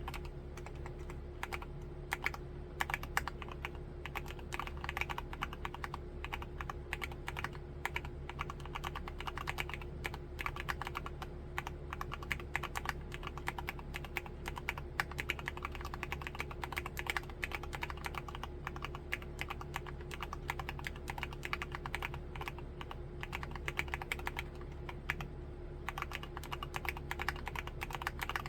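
Continuous fast typing on a mechanical keyboard, an MMstudio Class80 R2 fitted with Cherry MX2A Black linear switches: a dense run of keystrokes with a short lull about three seconds before the end.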